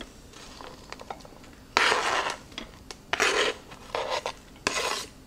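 Diced onion being scraped off a plastic cutting board: several short rasping scrapes, the first, about two seconds in, the longest, with light ticks of onion pieces before them.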